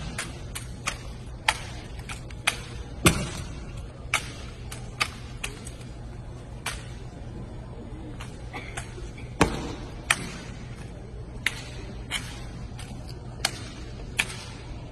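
Sharp, irregular clacks and slaps of a drill rifle being spun, tossed and caught by hand in an armed drill routine, about one or two a second, a few heavier strikes echoing through a large arena, over a steady low hum.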